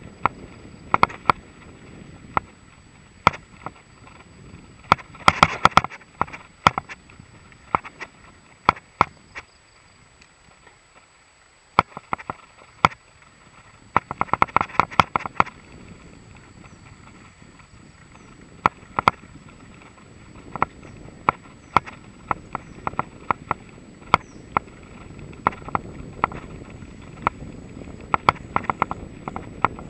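Mountain bike (a Mongoose XC Salvo Comp full-suspension) ridden over a bumpy dirt and grass trail: irregular sharp clicks and rattles, coming in quick flurries about five seconds in and again around fourteen to fifteen seconds, over a low rolling rumble that grows louder in the last third.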